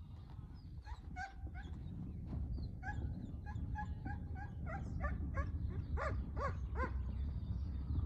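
A rapid series of short, high yelping animal calls, coming thicker near the end, over a steady low rumble.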